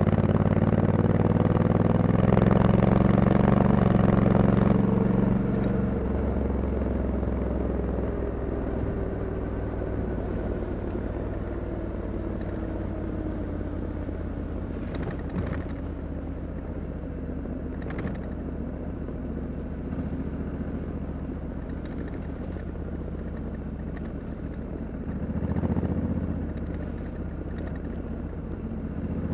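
Honda Africa Twin 1100 DCT's parallel-twin engine heard from the rider's seat, pulling under throttle for the first few seconds. It then eases off, its pitch falling as the bike slows and runs on at lower revs. The engine picks up briefly again near the end.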